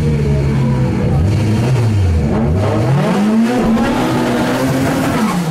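Fiat Uno Turbo's turbocharged four-cylinder engine revving hard: the revs drop about two seconds in, climb quickly and hold high, then begin to fall near the end.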